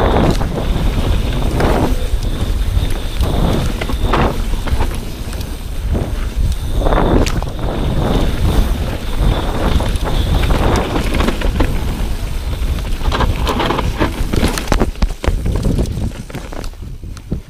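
Mountain bike descending a dirt trail, its tyres rumbling and the bike rattling and knocking over bumps, under heavy wind buffeting on the camera microphone. A thin high whine comes and goes, and the sound fades away near the end.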